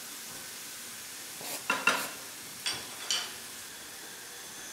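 Merguez sausages sizzling steadily in a frying pan in their own fat. A utensil clicks against the pan four times, two close together about one and a half seconds in, then two more about a second later.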